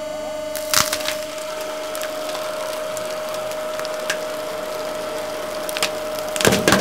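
Hydraulic press running with a steady whine while a stack of books and paper frozen in liquid nitrogen is crushed. The frozen paper gives sharp, splintering cracks, a few at first and then bunching together near the end as it gives way under the rising pressure.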